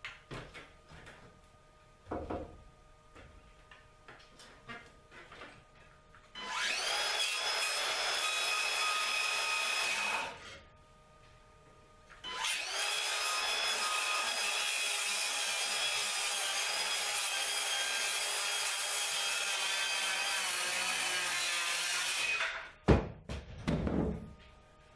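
Circular saw cutting through wooden ceiling joists overhead, trimming them back for a new beam: one cut of about four seconds, a short pause, then a longer cut of about ten seconds with a steady motor whine. A few sharp knocks follow near the end.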